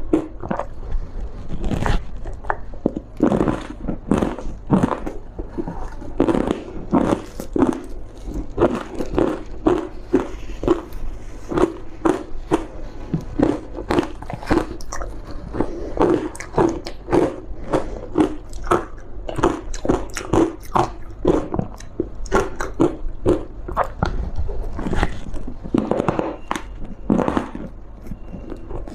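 Close-miked biting and chewing of frozen green matcha powder ice, a steady run of sharp crunches several times a second.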